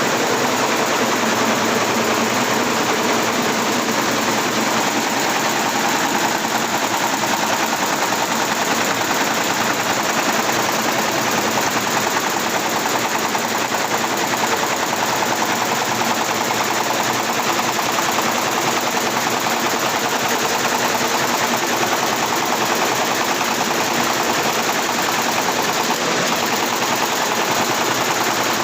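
Computerized embroidery machine stitching, its needles making a steady, very fast, even rattle throughout.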